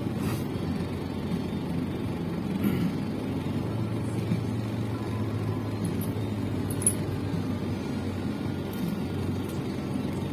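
Steady low rumble inside a parked car's cabin with the engine idling, with a few faint, short clicks over it.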